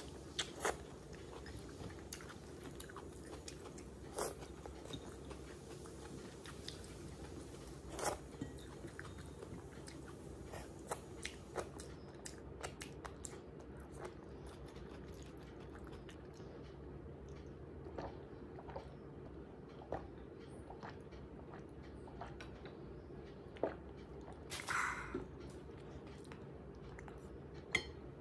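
Close-miked chewing of rice and goat curry eaten by hand, heard as many scattered short, sharp mouth clicks over a faint steady hum. A brief louder noise comes about three seconds before the end.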